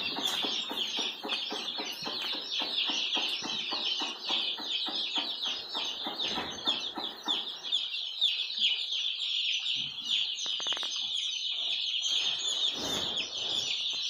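A dense, continuous chorus of high peeping from hundreds of young chicks. A rapid patter of ticks runs underneath for roughly the first half.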